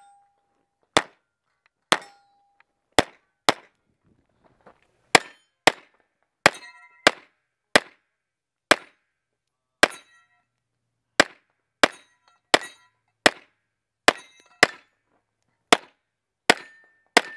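Pistol shots fired in quick pairs and singles, about twenty in all at uneven intervals, as the shooter moves through a practical-shooting stage. A few shots are followed by a short metallic ring, steel targets ringing when hit.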